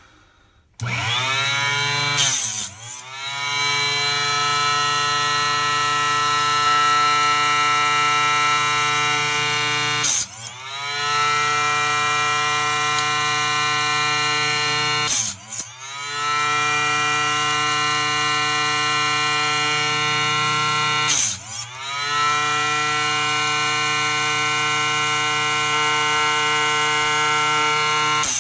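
Small electric mini chop saw running with a steady high whine, cutting brass .223 cases down to 300 Blackout length. About five times a short screech marks the blade going through a case, and the motor's pitch dips and climbs back each time.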